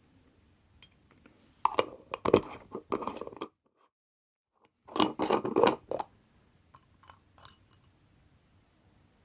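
Two bursts of crunchy scraping and clicking from small hand work on a wristwatch, each lasting about a second or more, with a single sharp click before them and a few faint ticks after.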